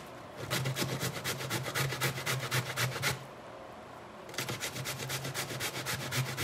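Peeled cassava root being grated by hand on a stainless-steel box grater: rapid, repeated scraping strokes, stopping for about a second midway and then resuming.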